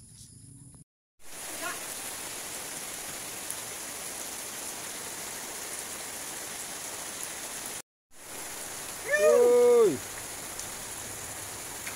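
Heavy rain falling steadily as a constant hiss. About nine seconds in, a person's voice calls out briefly over it, louder than the rain.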